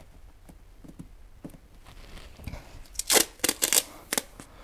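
Adhesive tape pulled off a roll and torn in several short, sharp rips about three to four seconds in, taping a freshly glued LED strip in place while the adhesive sets. Before that there are only faint handling clicks.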